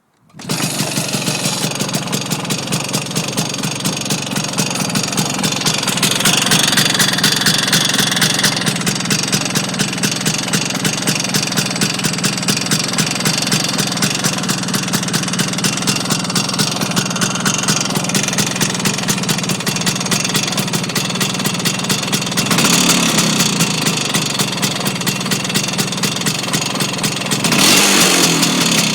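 Vespa scooter engine idling with a steady, rhythmic knock, briefly revved twice in the latter half. The knock does not change with the clutch pulled in or with the gear selected, which the owner suspects points to worn engine bearings.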